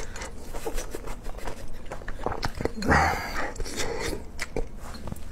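Close-miked eating of shrimp: scattered wet mouth clicks and smacks of chewing, with a short voiced 'mm' about three seconds in.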